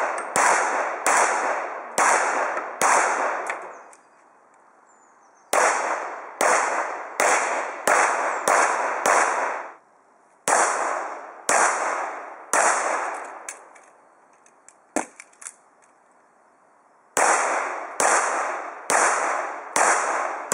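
Handgun shots fired at practical-shooting targets: four strings of four to six sharp shots, a little under a second apart, each shot ringing out with a trailing echo, with pauses of a couple of seconds between strings. A few light clicks fall in the longest pause.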